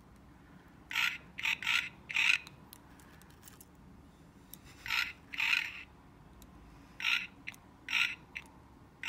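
A pig-shaped keychain flashlight being pulled out and handled: a series of short rasping sounds, in twos and threes, about nine in all.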